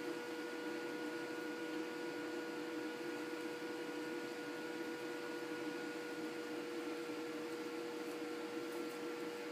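Steady mechanical hum with a few constant tones, unchanging throughout.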